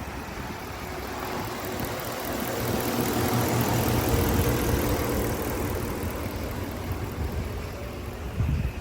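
A motor vehicle's engine running, getting louder toward the middle and easing off again, with wind noise on the microphone.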